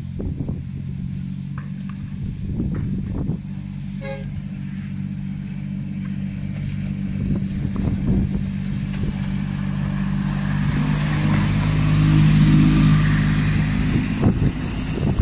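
Engine of a miniature-railway diesel-outline locomotive running steadily as it approaches hauling a passenger train, growing louder until it passes close, about twelve seconds in, with occasional clicks of the wheels on the track.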